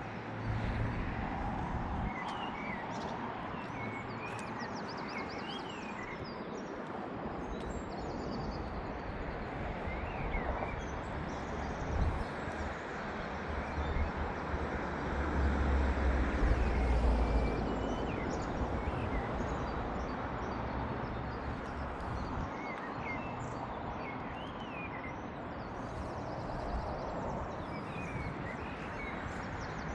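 Outdoor ambience: a steady hum of distant traffic with small birds chirping on and off. A low rumble swells about halfway through and then fades.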